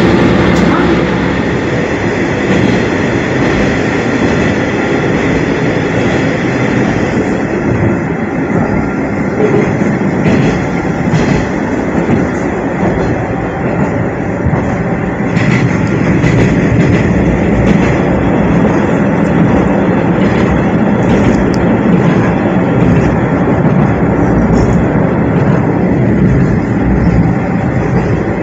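Tarumi Railway Hi-Mo 330 diesel railcar heard from inside the passenger cabin while under way: a steady drone of its diesel engine mixed with wheel-on-rail running noise. A few sharp clicks come through the middle.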